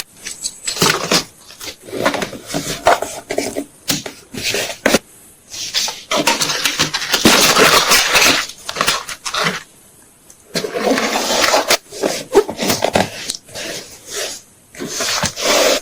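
Photocards and packing materials handled up close: irregular rustles, crinkles and taps, with a longer stretch of dense crinkling about six to nine seconds in.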